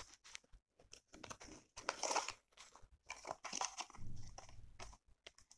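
Cardboard box of a lavalier microphone being opened and handled: paper and card rustling and scraping in short, irregular bursts as the contents are pulled out.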